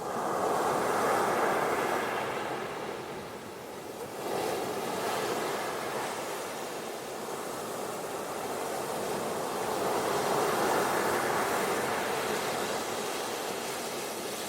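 Ocean waves washing onto a beach, the surf swelling and fading in slow surges, with one wave coming in abruptly about four seconds in.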